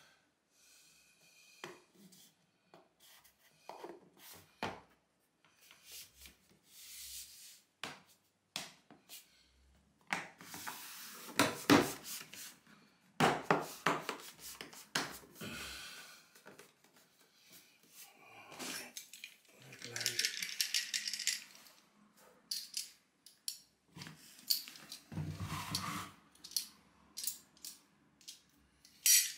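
Scattered rubbing, tapping and light knocking as vinyl floor planks are handled and pressed down by hand, with a short hissing noise about twenty seconds in.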